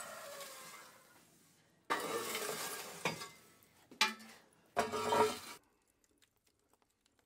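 Glowing charcoal embers being raked across the floor of a wood-fired bread oven with a long-handled metal scraper: the coals clink and scrape in three separate pushes after a first stroke fades out, and it goes quiet near the end.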